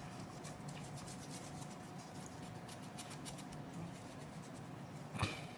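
Faint, irregular scratchy rubbing of a cotton swab scrubbing grime off a graphics card, with one brief louder sound near the end.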